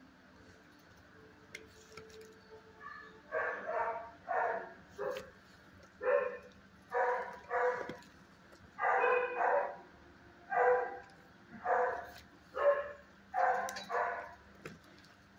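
A dog barking about a dozen times, the barks coming singly and in quick pairs, starting about three seconds in.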